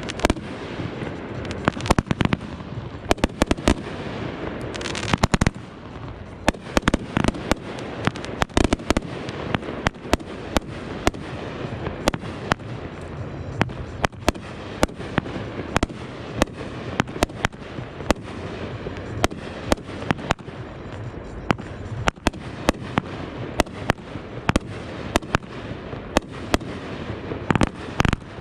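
Fireworks going off in rapid, irregular succession: many sharp bangs of shells bursting overhead, with near-continuous crackling between them.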